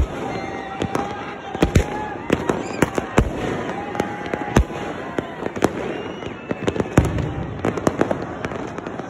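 Aerial fireworks going off overhead: many sharp bangs at irregular intervals, often more than one a second, over a continuous haze of crackle and pops.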